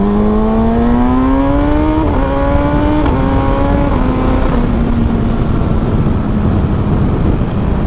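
2020 Kawasaki ZX6R's inline-four engine heard while riding, over a steady rush of wind. Its pitch rises for about two seconds as it accelerates, then steps down a few times and settles into a steady cruise.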